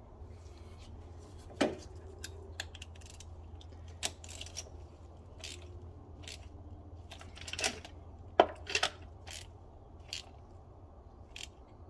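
Scattered metallic clinks and clicks of hand tools and engine parts being handled, with a few sharper knocks, over a steady low hum.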